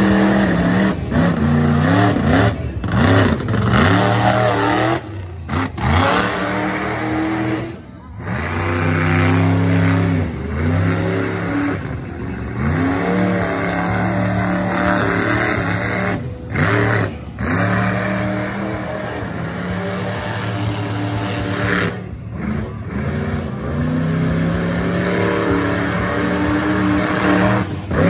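Monster truck engine revving hard in repeated bursts, its pitch climbing and falling again and again as the truck spins and charges around the dirt arena. The sound drops away briefly a few times between bursts.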